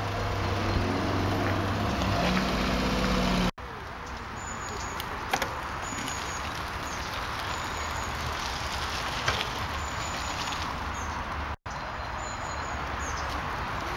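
Outdoor sound of children riding bicycles along a lane. For the first few seconds a steady low vehicle hum with a rising tone is heard. Then the sound drops out abruptly and gives way to an even background noise with scattered light clicks and a few short high chirps, with another brief dropout near the end.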